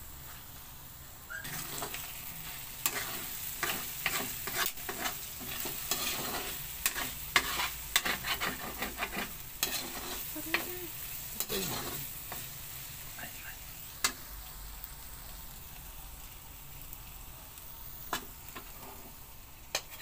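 Corned beef and potatoes sizzling in a steel wok while a metal spatula scrapes and clanks against the pan. The clanking is busy through the first half, then thins to the steady sizzle with an occasional clank.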